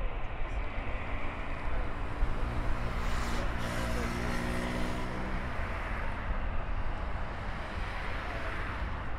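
Jet engines of a taxiing Boeing E-3D Sentry heard from a distance: a steady rumble and hiss at taxi power. A low, even hum joins in for a few seconds in the middle.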